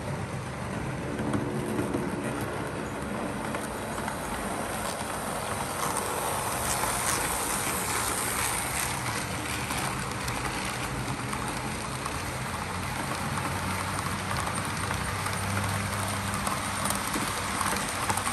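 Model freight train rolling past on a curve of track: a steady noise of the cars' wheels running on the rails, loudest about halfway through, with a low motor hum coming up near the end as a locomotive draws near.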